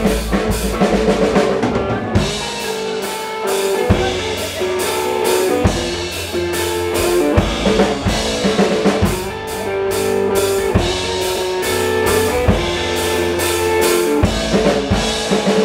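A live rock band playing an instrumental passage: drum kit and electric guitars.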